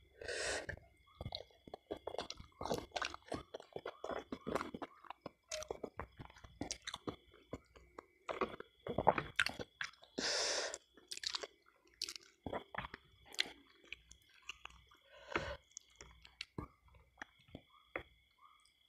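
Close-up wet chewing and mouth smacks from a person eating soft ayam ingkung chicken with sambal, in quick irregular clicks. About ten seconds in there is a louder noisy tearing as the whole chicken is pulled apart by hand.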